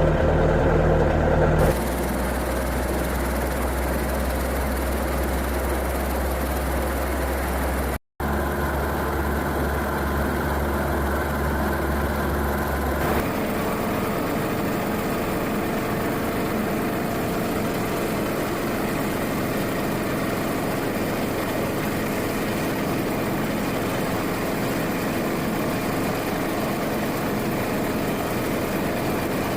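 Helicopter's piston engine idling steadily at about 1200 rpm with the clutch engaged, a steady mechanical hum. It cuts out for a moment about eight seconds in, and the tone shifts twice.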